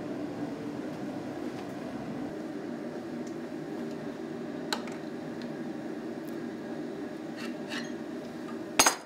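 Steel tools and a bench vise clinking as red-hot iron stock is handled at the vise: a few light metallic clicks, then one loud double clank near the end. A steady low drone of workshop machinery runs underneath.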